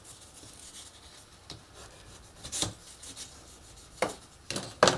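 Paper being burnished over a glued cardstock seam, rubbed by hand and then with a bone folder. The first half is a soft, faint rubbing; the second half has a few short, sharper scraping strokes, the loudest near the end.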